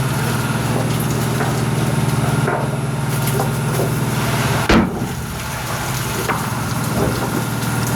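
Farm machinery running with a steady low drone, with scattered knocks and one sharp, loud knock about halfway through.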